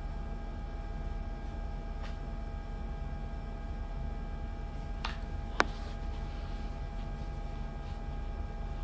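Steady low electrical hum with faint steady tones over it, as room tone in a small room. A single sharp click about five and a half seconds in, just after a smaller one.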